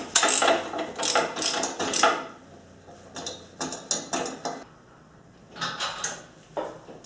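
Hand ratchet wrench clicking in quick runs as it is swung back and forth, tightening the bolts that hold an engine stand's mounting plate to the engine block. Three runs of ratcheting with short pauses between them.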